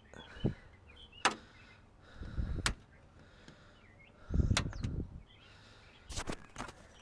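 Sharp plastic clicks and snaps with a few dull bumps, as the zip ties holding a car's plastic front grille are cut and the grille is worked loose. A quicker run of clicks comes near the end.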